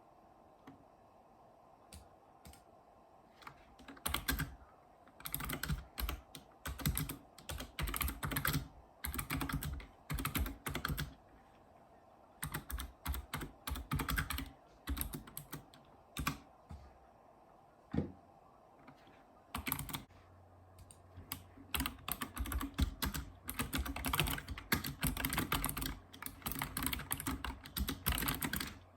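Typing on a Razer Ornata Chroma mecha-membrane keyboard: a few single keystrokes at first, then bursts of quick typing broken by short pauses, and steady fast typing through the last third.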